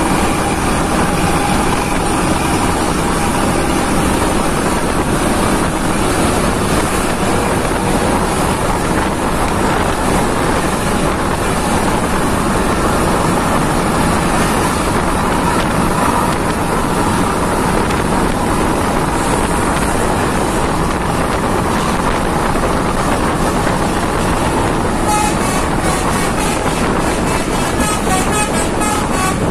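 Steady vehicle and road noise from driving behind an intercity bus whose engine has been set to a racing tune, with wind on the microphone. Near the end there is a quick run of pulsing tones.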